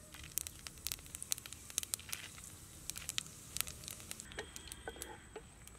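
Fennel seeds and dried red chillies crackling in hot oil, with irregular sharp pops several times a second over a faint sizzle.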